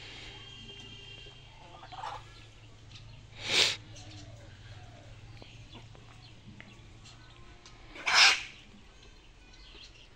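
Chickens in a yard: faint calls, with two short, loud, harsh cries about three and a half and eight seconds in, over a low steady hum.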